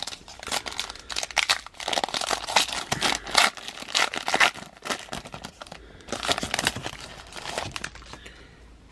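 Foil trading-card pack wrapper being torn open and crinkled, a dense run of sharp crackles that dies down near the end.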